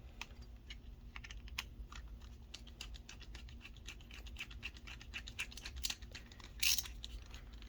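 Small hard parts of a fishing reel clicking and tapping as they are handled and fitted together, in quick irregular runs, with a louder scrape a little before the end.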